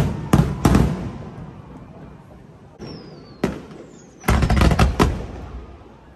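Aerial fireworks shells bursting in volleys: two bangs just after the start, a loud bang about three and a half seconds in, then a quick cluster of bangs, each followed by an echoing rumble. A thin falling whistle sounds twice, just before the later bangs.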